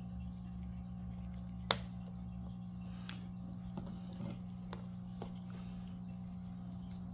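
Steady low hum with scattered faint clicks and ticks of hands working a crochet hook through yarn, one sharper click about two seconds in.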